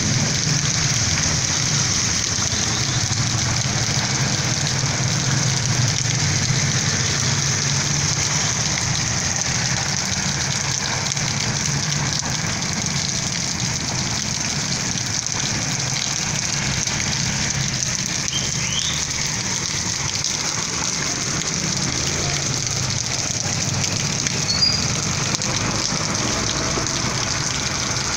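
Heavy rain falling steadily on a flooded street and pavement: a constant, unbroken hiss with a low steady rumble beneath it.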